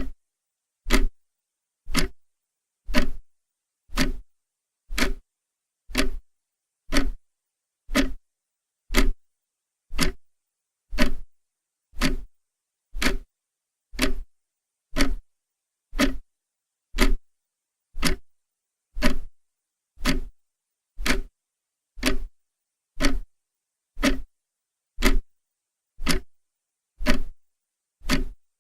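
Clock ticking steadily, one sharp tick about every second with silence in between.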